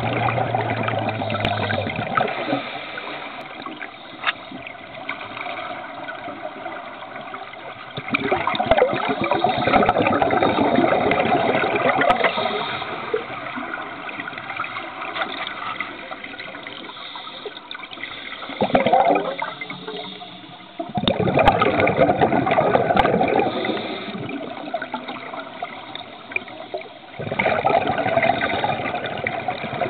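Scuba regulator exhaust bubbles heard underwater: loud bubbling surges of one to four seconds at each exhale, several seconds apart, with quieter bubbling between breaths.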